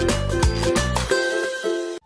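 Background music with a steady beat and plucked-string notes, thinning out about a second in and cutting off abruptly at the end.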